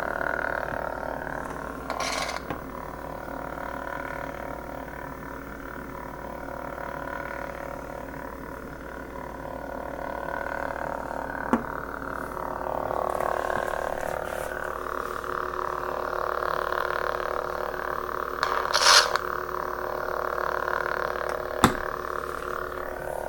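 Lightsaber sound-effect hum from the saber's sound board, a steady buzzing tone that swells and fades as the blade is swung. A louder crackling clash burst comes near the end, and single sharp clicks sound around the middle and shortly before the end.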